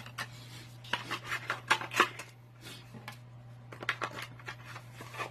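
Hands handling small objects and packaging: a scattered run of short scrapes, rubs and clicks over a steady low electrical hum.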